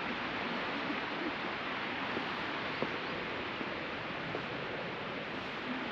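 Ocean surf washing steadily onto the beach, with a few faint ticks over it.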